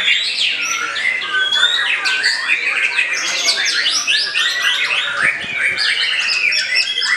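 White-rumped shama singing a continuous stream of rapid, varied whistles, trills and chirps, with no pause, among other songbirds singing over one another.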